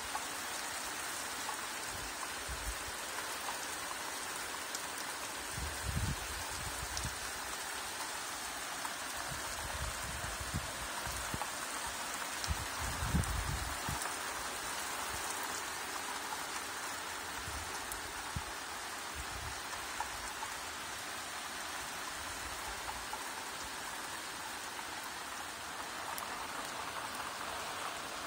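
Steady rain falling, an even hiss with scattered drip ticks. A few low rumbles come and go, the loudest about thirteen seconds in.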